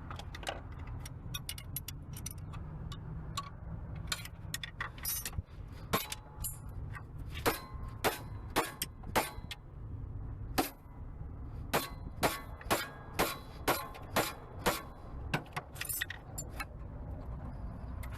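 Hand tools clinking and striking metal on a car engine, scattered at first, then a run of sharp metallic taps about two a second, over a low steady hum.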